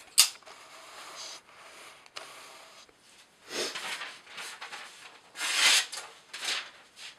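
Off-camera handling noises: a sharp click just after the start, then a few short rustling scrapes, the loudest about two thirds of the way through.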